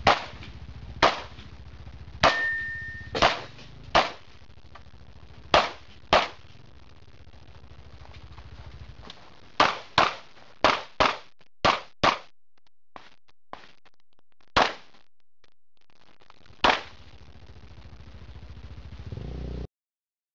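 Pistol shots on a USPSA action-pistol stage: about sixteen sharp reports, some single, some in quick runs about half a second apart, with a pause of a few seconds in the middle. A short steady beep sounds a couple of seconds in.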